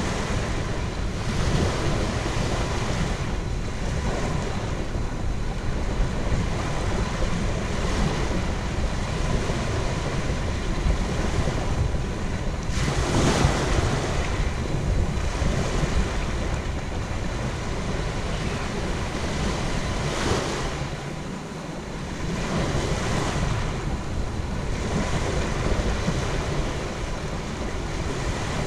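Surf washing onto a sandy beach, a steady rush of breaking waves with a louder surge about halfway through. Wind rumbles on the microphone underneath and eases briefly a little later.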